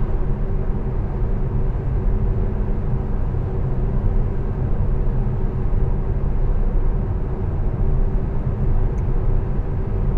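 Steady road noise inside the cabin of a Tesla Model S cruising at about 80 km/h, a low, even rumble from tyres on asphalt. There is no engine sound, as the car is electric.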